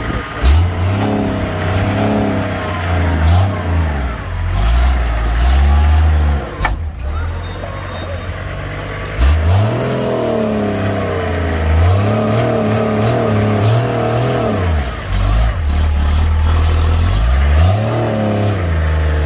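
Modified Toyota Land Cruiser's engine revving hard under load in repeated surges, the pitch climbing and falling back about six times as the truck fights to climb out of a muddy pit.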